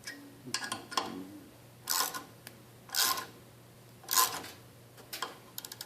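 Ratchet and socket clicking as long bolts are turned in to press the crankshaft out of a Yamaha Raptor 660's split crankcase. There is a short sharp metallic burst about once a second, with a run of quick clicks near the end.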